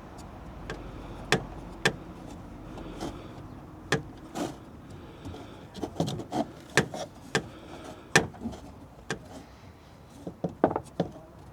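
Scattered clicks and light knocks of hands working a new seal into the diesel fuel filter housing, at an uneven pace with several sharp clicks close together near the end.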